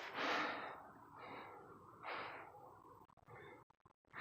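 A man breathing heavily close to the microphone: four or five breaths about a second apart, the first the loudest.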